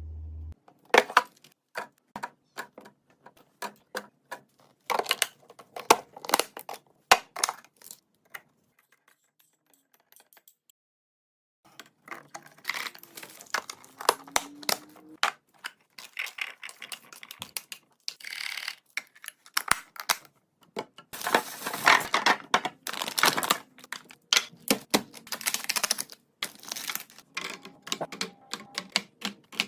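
Items and containers being set down and arranged while restocking a fridge: rapid clicks, taps and clatters. The clatter stops for a few seconds about a third of the way in, then comes back denser.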